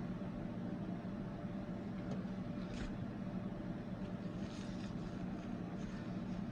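Steady low mechanical hum, with a few faint, brief hissy sounds.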